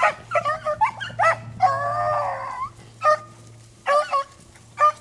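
Beagles baying on a rabbit's scent trail: a string of short barks and one longer drawn-out bawl about two seconds in.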